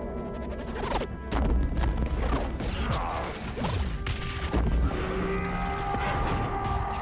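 Film sound effects of a starship being destroyed by torpedoes: sharp crashing impacts about a second in, then low rumbling explosions, under a dramatic score whose held tones take over in the second half.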